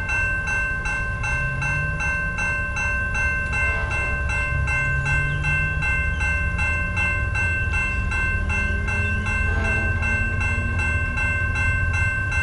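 Railroad crossing warning bell ringing steadily, about three strokes a second, as the crossing signals activate and the gates come down. A low rumble sits underneath.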